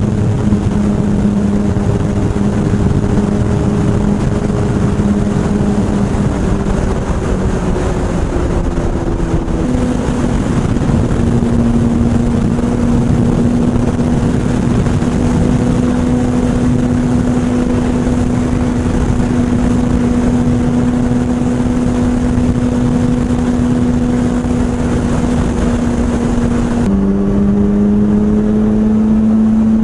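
Suzuki GSX-R1000R's inline-four engine running at a steady cruise under heavy wind noise. The engine note shifts to a new pitch about ten seconds in and again near the end, where the wind hiss eases.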